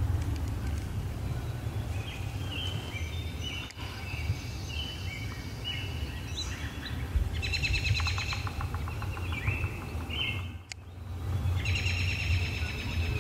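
Several songbirds singing in spring woodland, short phrases and a few rapid trills, over a steady low rumble.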